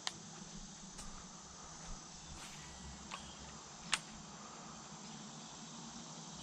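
Steady high insect trilling, with a few sharp clicks or knocks scattered through it, the loudest about four seconds in.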